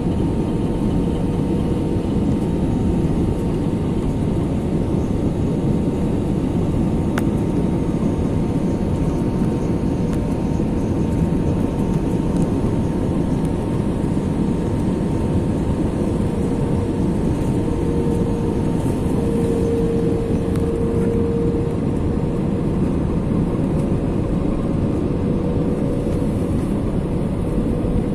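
Jet airliner cabin noise on final approach, heard from a window seat over the wing: a steady roar of engines and rushing air with a steady whine in it. The whine grows stronger for a few seconds about two-thirds of the way through.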